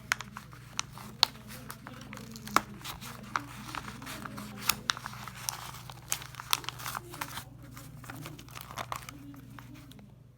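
Paper rustling and crinkling with many sharp clicks and snaps as a staple-less stapler, jammed in a stack of too many sheets, is worked loose from the paper.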